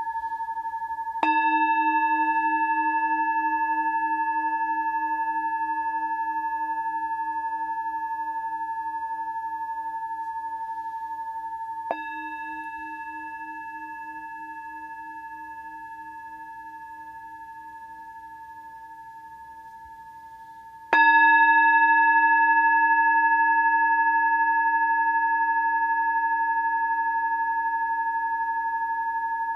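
Metal Tibetan singing bowl struck three times, a soft strike in the middle and the loudest near the end, each ding ringing on in a long, slowly fading tone of several pitches. The lowest tone wobbles steadily as it rings.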